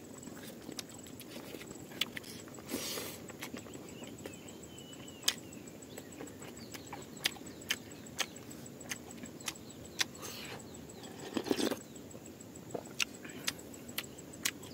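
Close-up eating sounds: chewing with wet mouth clicks and lip smacks, a dozen or more sharp ticks spread irregularly, with a couple of brief louder crunching or rustling moments about three seconds in and near the middle.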